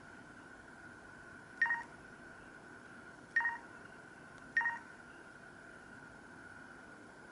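LG KP500 mobile phone playing a sparse built-in ringtone: three short electronic two-pitch beeps at uneven gaps of one to two seconds, over a faint steady high whine.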